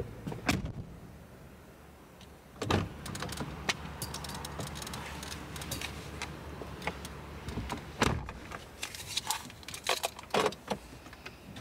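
A car door opening with a knock, rustling as a person climbs into the driver's seat, and the door shutting with a loud thump about eight seconds in, followed by small clicks and keys jangling.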